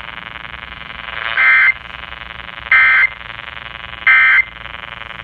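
Emergency Alert System end-of-message data bursts: three short, identical warbling digital bursts about a second and a half apart, marking the end of a flash flood warning. They play over a steady buzzing drone.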